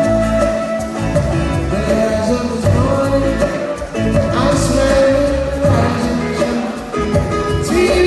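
Live acoustic reggae band playing: a man singing lead over strummed acoustic guitar.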